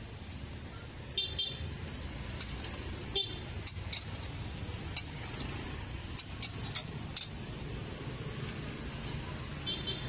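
Metal spatula scraping and clanking against a wok as greens are stir-fried, with scattered sharp clicks and a few brief ringing tones, over a steady rumble of street traffic.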